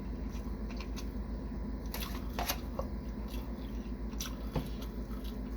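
A person chewing sushi, with scattered small wet clicks and crackles from the mouth over a steady low hum.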